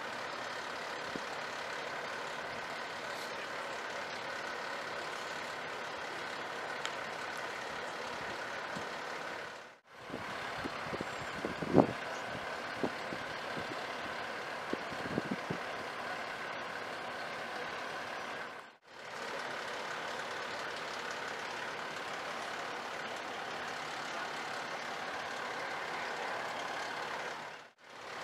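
Steady outdoor background of vehicle engines and road traffic, cutting out briefly twice. A few knocks come about a third of the way through, the loudest a single sharp knock.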